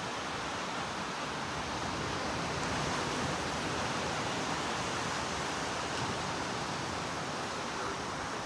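Ocean surf breaking on a beach, heard as a steady, even rushing wash with no separate swells standing out.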